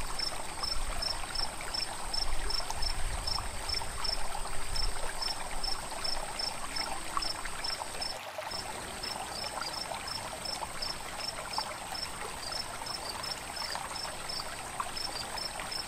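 Running water of a shallow forest stream, with insects calling over it: a steady high whine and a regular chirp about three times a second. Both break off for a moment about halfway through.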